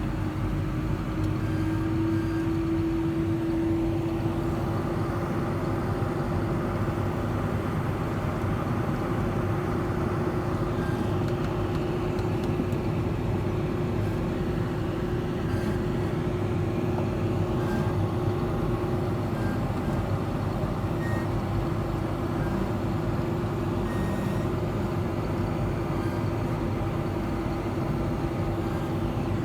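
Harvest machinery running steadily: a diesel engine's continuous rumble with a constant hum.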